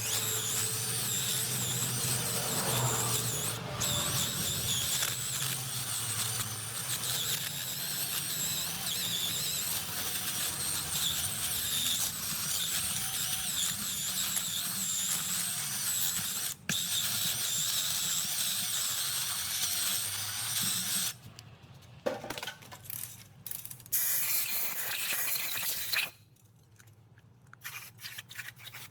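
A power tool running continuously with a high, wavering whine and scraping noise. It stops about 21 seconds in, then a few short bursts and one more brief run follow before it falls quiet near the end.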